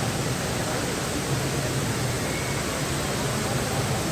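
Indoor waterfall with water cascading down several floors, a steady rushing noise.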